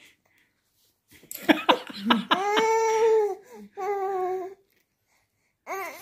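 Eight-month-old baby vocalizing: a few short sounds about a second in, then two long 'aaah' sounds held on one note, and after a pause more short sounds falling in pitch near the end.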